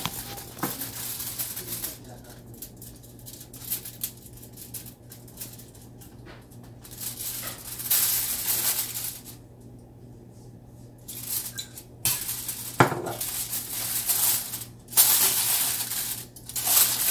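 Metal kitchenware clinking and clattering in several separate bursts, with a sharp knock about two-thirds of the way through.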